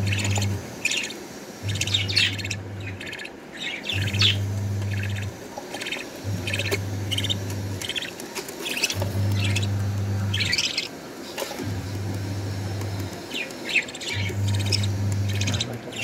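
Budgerigars calling in a nest box: many short, high chirps and squawks from the fledglings and the adult, coming in quick runs with brief gaps. Under them, a low hum switches on and off about every two and a half seconds.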